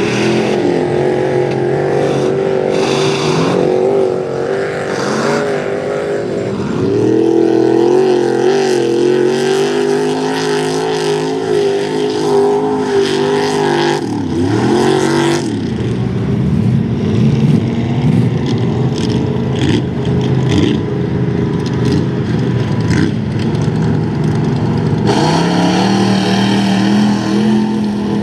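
Mud bog truck engine revving hard, its pitch wavering up and down. The revs drop and climb again twice, then hold a steady high note near the end.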